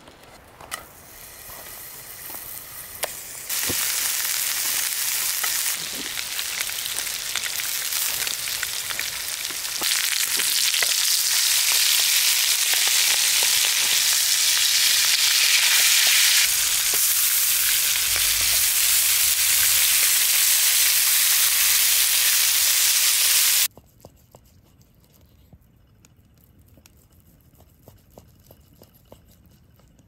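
Beef tenderloin steak searing in a cast iron skillet over a wood fire: loud, steady sizzling that starts about three seconds in and cuts off suddenly about 24 seconds in, leaving only faint clicks.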